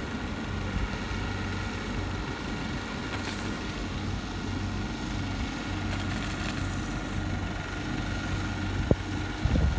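Engines of a tractor-towed hydroseeding rig running steadily as it sprays hydromulch slurry, a constant low hum with a faint steady whine above it. A brief knock or two near the end.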